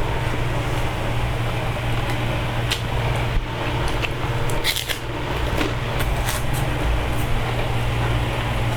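Steady low hum and hiss throughout, with scattered short clicks and crunches of someone eating.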